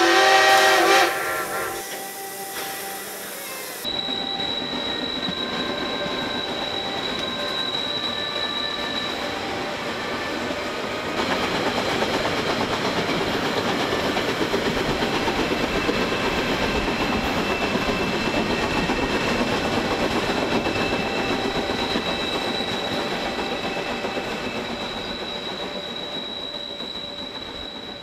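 Harz narrow-gauge steam train: a whistle blast ends about a second in, then the train runs on the track with a steady rolling noise and a thin high whine now and then. The running noise gets louder about eleven seconds in and fades near the end.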